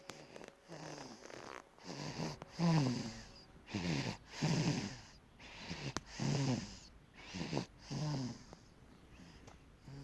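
Snoring in a steady rhythm of loud breaths, about one every one and a half to two seconds, each with a droning pitch that falls as it goes.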